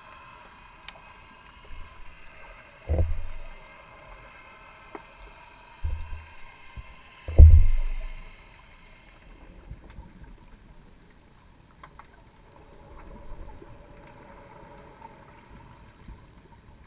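Underwater ambience recorded by a GoPro in its waterproof housing: a faint steady hum of several tones that fades out past the middle, a few light ticks, and low thumps about three seconds in and twice more between six and eight seconds in, the last of them the loudest.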